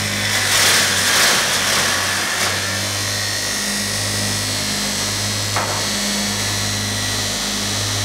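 Double-head pallet stringer notcher running with a steady motor hum. For the first two seconds or so its cutter heads notch a wooden pallet stringer, a louder harsh cutting noise that swells and fades, and a single sharp click comes a little past the middle.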